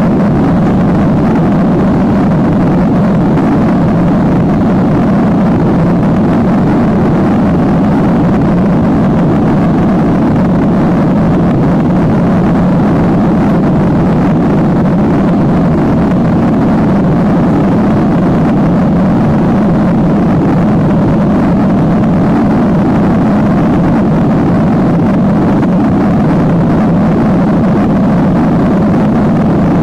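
Boeing 737-800's CFM56-7B jet engines and airflow heard inside the passenger cabin during the climb-out after takeoff: a loud, steady, deep rushing drone that does not change.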